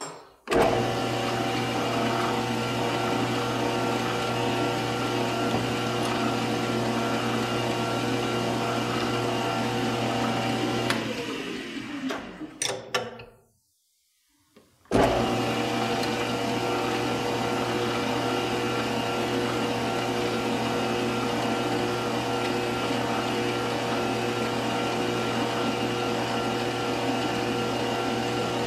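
Metal lathe running at a steady speed with a hum and a whine, its spindle turning a part while a small drill bores a pilot hole into it. About eleven seconds in the motor winds down, a few clicks follow, and after a short silence the lathe starts again abruptly and runs steadily.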